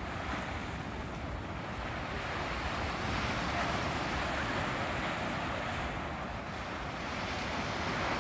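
Surf breaking and washing up the beach, a steady rushing that swells about three seconds in and again near the end, with wind rumbling on the microphone.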